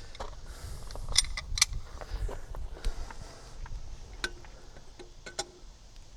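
Scattered sharp metallic clicks and clinks, about half a dozen, over low rumbling handling noise.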